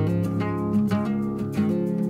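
Background music: acoustic guitar strumming.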